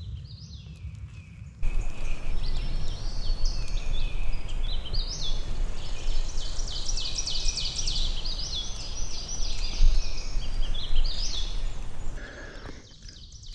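Many small birds singing rapid, repeated high notes over a steady rushing noise. The noise starts abruptly about two seconds in and ends abruptly about a second before the end.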